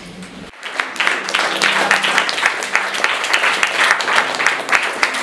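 Audience applauding, a dense, steady clapping that starts suddenly about half a second in.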